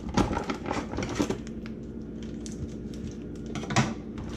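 Scattered light clicks and knocks of kitchen items being handled on a counter over a steady low hum, with a sharper knock near the end.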